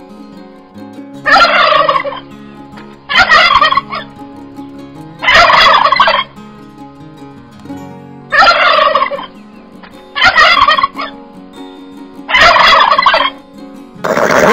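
Domestic turkey toms gobbling: six gobbles, each under a second long, about two seconds apart.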